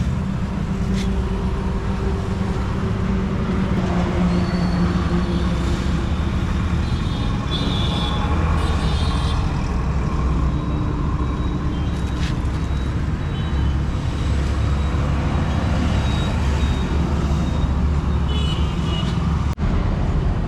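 Steady low rumble of road traffic, with a brief cutout near the end.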